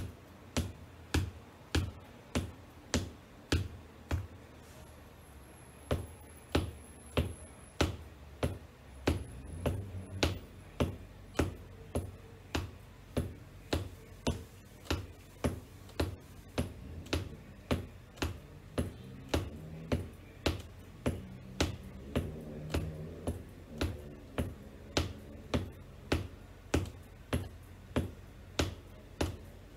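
Black wedge-heeled ankle boots tapping on a hardwood floor in a steady rhythm, about two sharp taps a second.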